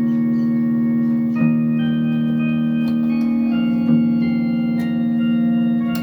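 Yamaha PSR electronic keyboard on an organ voice playing a slow hymn in three-part harmony: long held chords that change every second or two.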